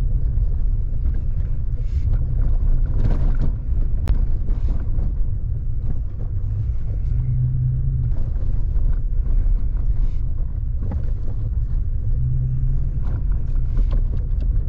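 A vehicle driving on a dirt forest road: a steady low engine and road rumble, with scattered knocks and rattles from bumps in the road.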